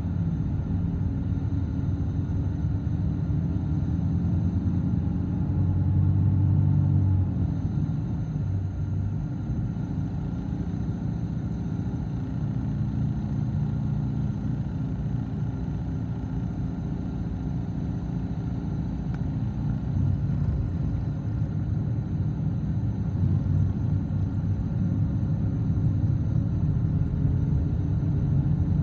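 Steady low rumble of tyre and engine noise from a vehicle travelling along a road, swelling briefly about six seconds in.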